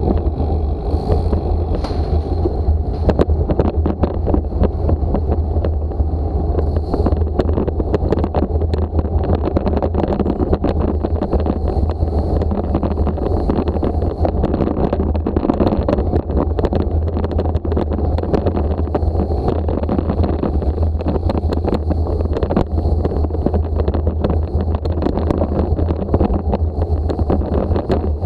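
Wind buffeting the microphone of a bicycle-mounted action camera while riding, a steady low rumble with many small rattles and clicks from the bike and mount running over the paving.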